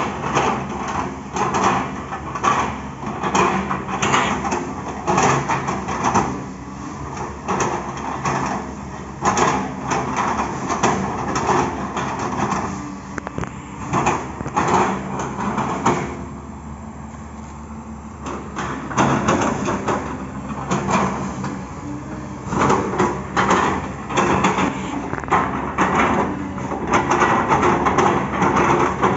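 Excavator engine running steadily under a stream of irregular knocks, cracks and scrapes as its bucket chops and crushes an oil palm trunk, with a short quieter lull about two-thirds of the way through.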